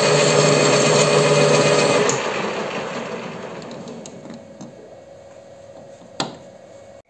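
WM210V bench lathe running while parting off a brass bar. About two seconds in, the motor is switched off and the chuck spins down, its sound fading over the next few seconds. A single sharp click comes about six seconds in.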